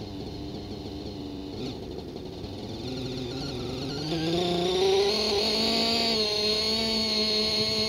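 ALIGN T-REX 600 nitro RC helicopter's glow engine spooling up: after a quieter start its pitch rises for about two seconds, then holds steady with a high whine.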